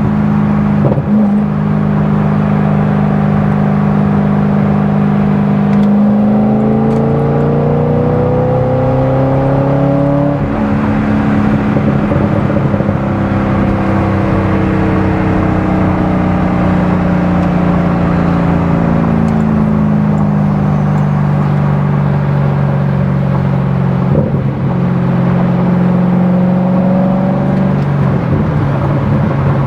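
Chevrolet Corvette C6 Z06's 7.0-litre LS7 V8 running under way. Its note climbs about six seconds in and drops suddenly near ten seconds. It then sags slowly, climbs again around twenty seconds, and drops once more a little later.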